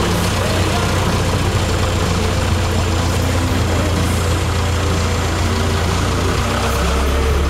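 Cessna 152's four-cylinder Lycoming engine and propeller running steadily at low power, a loud, even drone heard from inside the cockpit while the aeroplane moves on the ground.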